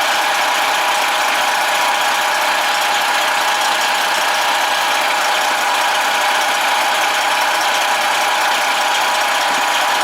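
Freightliner Cascadia semi truck's diesel engine idling, a steady, unchanging hum.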